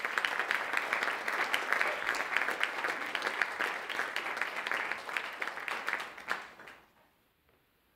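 Audience applauding: a dense clatter of many hands clapping that fades out about a second and a half before the end.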